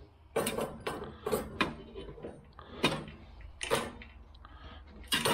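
Irregular metallic clicks and knocks as a snowblower engine's carburetor is worked free by hand, its small throttle and choke linkages rattling against it.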